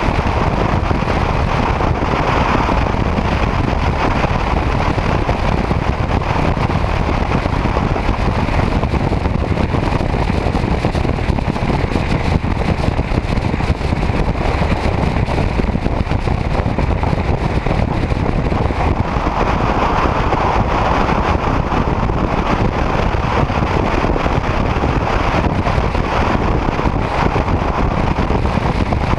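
Motorcycle riding at highway speed: a steady rush of wind and road noise on the bike-mounted camera, swelling briefly about two-thirds of the way in.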